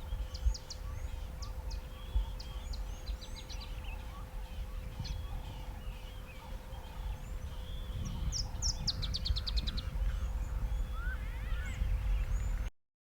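Greater blue-eared starling calling: scattered short, sharp high notes, then a quick rattling run of notes about eight or nine seconds in. Under it runs a low rumble and a faint steady hum, and the sound cuts off just before the end.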